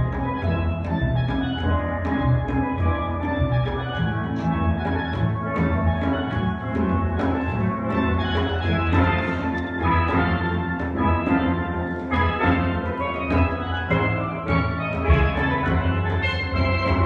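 Steel pan playing a soca-style tune, notes struck in quick succession over a steady bass line.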